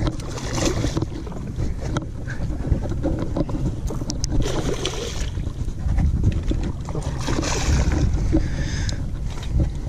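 Wind buffeting the microphone, with bursts of splashing as a hooked snook thrashes at the water's surface, about half a second in, again around four to five seconds in, and near the end.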